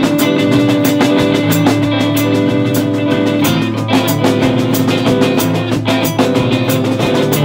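Rock band playing loudly: guitar over a drum kit, with a steady run of cymbal strokes keeping the beat.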